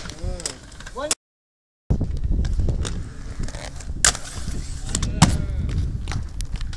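Inline skate wheels rolling on concrete, a steady low rumble, with sharp clacks of the skates striking and grinding a concrete ledge, the loudest about four seconds in and another about a second later. The sound drops out completely for under a second near the start.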